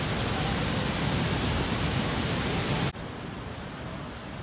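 Steady rush of falling water from Niagara Falls, an even full-range noise; about three seconds in it cuts abruptly to a quieter, duller rush.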